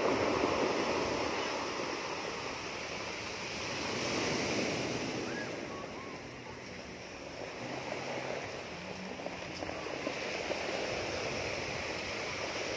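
Ocean surf breaking and washing up a stony beach, swelling loudest near the start and again about four seconds in.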